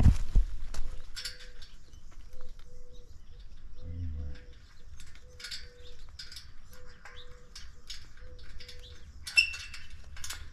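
Birds calling: scattered high chirps and a short, steady note repeated in irregular pairs, over a low steady background hum.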